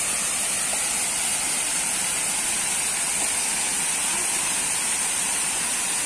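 Waterfall pouring down a rock face: a steady, even rush of falling water that does not change.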